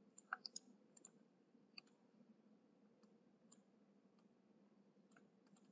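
Near silence with a handful of faint computer mouse clicks, most of them in the first two seconds and one more about three and a half seconds in.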